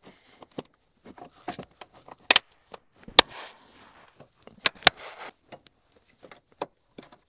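Sharp plastic clicks and knocks from a tractor's air cleaner housing as its end cover is seated and its clips are snapped shut, with four louder snaps in the middle and soft handling rustle between.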